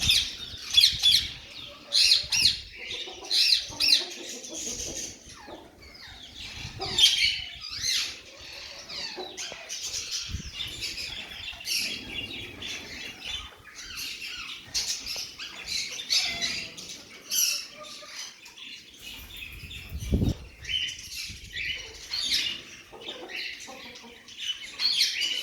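Ring-necked parakeets in an aviary, calling over and over with shrill screeches and chatter.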